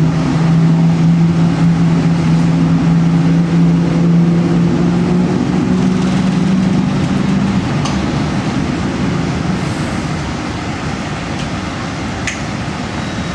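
A vehicle engine with a steady low hum that rises slightly in pitch and stops about seven seconds in, over a steady traffic rumble.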